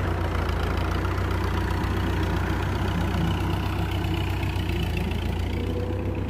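Farm tractor's diesel engine running steadily.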